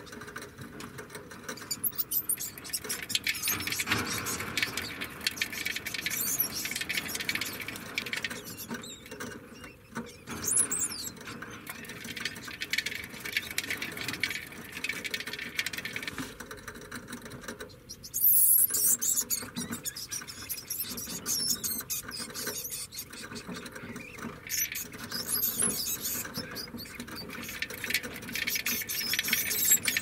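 Degu calling: a long run of rapid high-pitched chirps and squeals, with louder squealing bursts about ten and eighteen seconds in.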